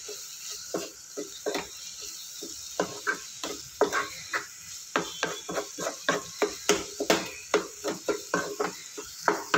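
Wooden spatula stirring and scraping a thick onion-tomato masala around a nonstick frying pan: quick, uneven strokes several times a second over a steady sizzle of the frying spices.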